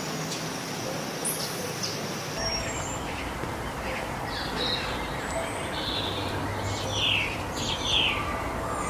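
Birds chirping, a scatter of short high calls, over a steady outdoor background noise that grows fuller in the low end about two and a half seconds in.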